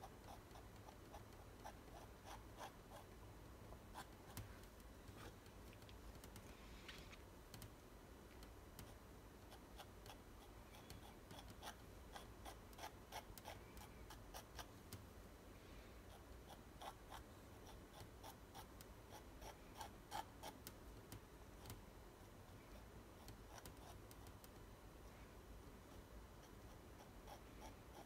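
Faint, irregular ticks and light scraping of a palette knife dabbing and spreading thick acrylic paint on canvas, coming in short runs.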